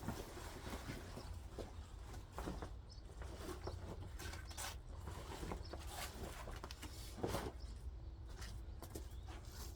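Scattered rustles, scrapes and clicks of hands handling and peeling back material, over a low steady rumble.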